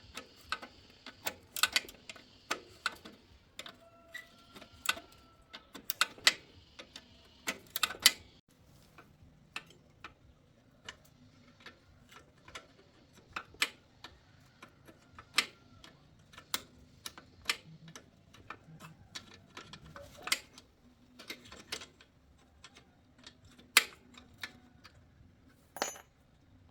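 Hand tools clicking and tapping on metal bicycle parts: irregular sharp clicks and light knocks, quicker and louder in the first eight seconds, then more spaced out.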